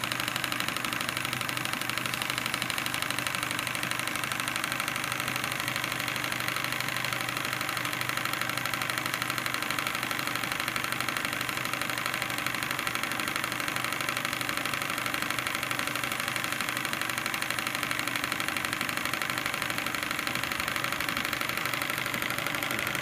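Stuart 10H single-cylinder, double-acting horizontal steam engine running steadily on live steam, a fast, even beat of exhaust and moving parts, driving a small dynamo.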